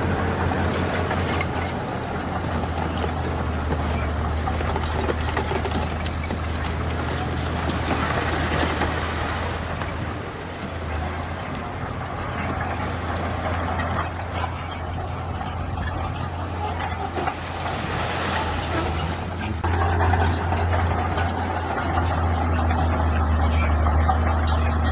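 Heavy diesel engine of a bulldozer running steadily with a deep hum, growing louder about twenty seconds in, with occasional knocks.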